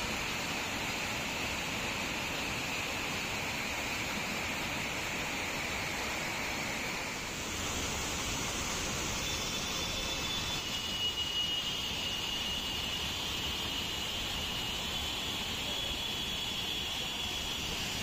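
Rain-swollen monsoon waterfall in full flood, water rushing and churning over rocks in a steady, unbroken wash of noise. About seven seconds in the sound changes as it switches to a different cascade.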